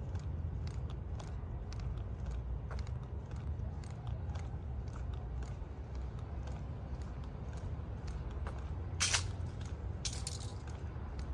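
Footsteps walking along a sidewalk, evenly paced at about two steps a second, over a low steady rumble. A brief sharp hiss about nine seconds in.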